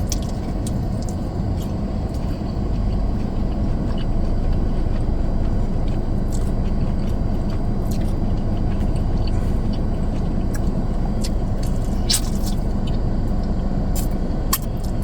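Steady low rumble inside a car cabin, with scattered short crunches and mouth clicks of someone eating close to the microphone.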